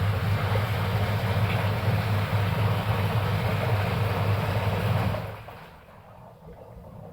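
Sanyo SW855XT washing machine's newly replaced wash motor running with a steady electric hum and a rushing churn, cutting off about five seconds in.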